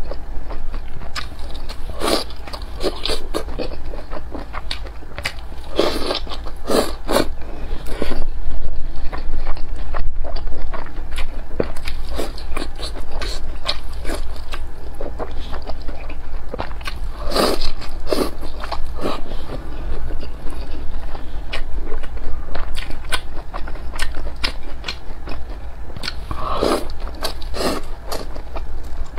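Close-miked eating sounds: biting into and chewing fried egg and instant noodles in broth, with many short, irregular wet mouth clicks, a little louder for a few seconds near the middle.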